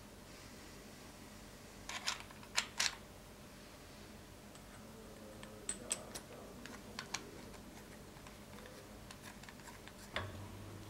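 Light metal clicks and clinks as small steel knife-handle fittings are handled and fitted together: a few sharp clicks about two seconds in, more scattered ones around six to seven seconds, and a knock near the end.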